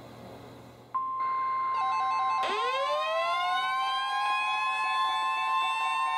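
NOAA Weather Radio alert: about a second in, the steady 1050 Hz warning alarm tone starts, which announces that a warning message follows. Weather radio receivers then sound their own alarms over it, first a pulsing beep, then a siren-like tone that rises sharply in pitch and holds.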